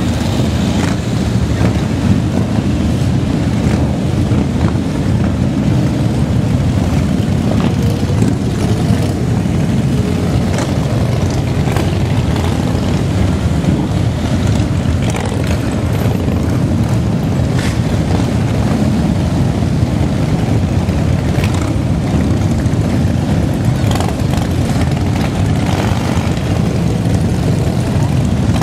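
A long procession of motorcycles riding past, their engines making a steady, loud, low rumble that never lets up, with scattered short sharper sounds.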